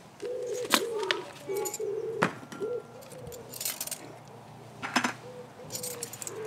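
A pigeon cooing over and over in a low, even rhythm of short hoots. A few sharp clicks sound over it.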